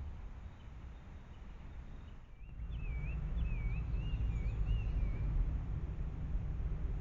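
A small bird sings a short phrase of looping, rising-and-falling whistled notes for about three seconds, starting a couple of seconds in, over a steady low rumble that grows louder at the same point.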